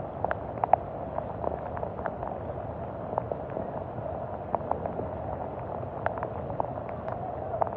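Rain falling on a flooded street: a steady hiss with many scattered sharp drip and splash ticks.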